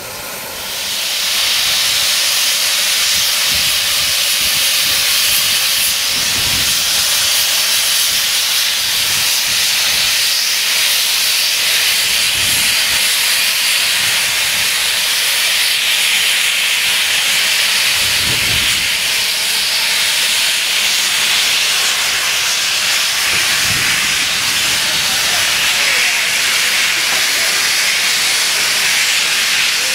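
Steam tank locomotive blowing steam from its open cylinder drain cocks as it pulls away: a loud steady hiss that starts about a second in, with a faint low thud every six seconds or so.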